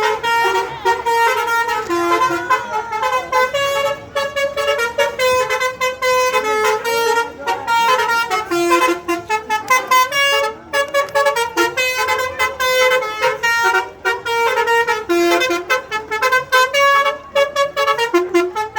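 Telolet bus horn, a set of melodic air horns, playing a fast tune of short stepped notes, repeating the phrases.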